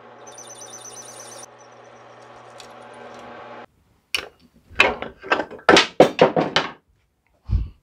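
Drill press motor running at slow speed, with a pulsing high squeal from the bit cutting into a stainless steel washer for about a second; the hum stops abruptly about halfway through. It is followed by a run of loud clunks and knocks and a low thump near the end.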